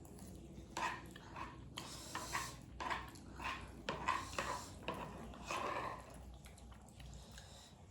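Eating utensils clinking and scraping against a bowl of noodles in a run of short, irregular sounds, fading out near the end.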